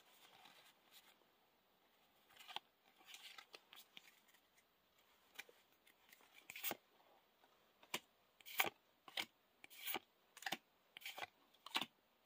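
Yu-Gi-Oh trading cards being flicked one at a time from the front to the back of a handheld stack, card sliding and snapping against card in short sharp clicks that come faster in the second half.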